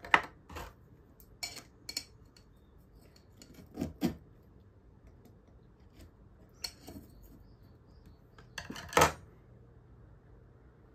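Metal terrarium tools, long tweezers and small scissors, clinking against a glass jar and being set down on a wooden tabletop. A scattered series of light clicks and taps, with the loudest clatter about nine seconds in.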